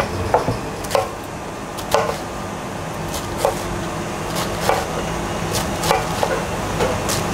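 Kitchen knife chopping vegetables on a plastic cutting board: irregular sharp knocks, roughly one a second, over a steady background hum.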